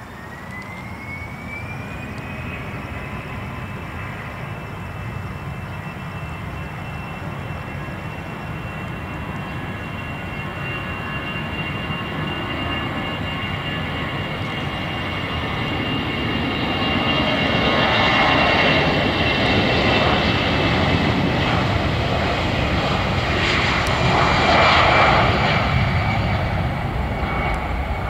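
Airbus A320 jet engines spooling up to take-off thrust: a fan whine rises in pitch over the first couple of seconds and then holds steady, over an engine roar that grows louder through the take-off roll and is loudest in the last third.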